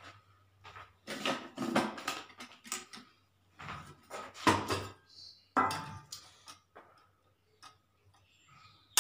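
Irregular clinks and knocks of steel kitchenware being handled, as a steel spice box and its small bowls are moved and opened, over a low steady hum.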